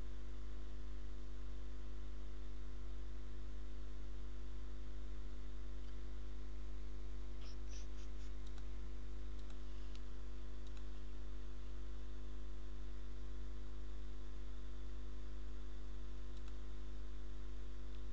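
Steady electrical mains hum with a few faint computer mouse clicks: a short cluster around the middle and one more near the end.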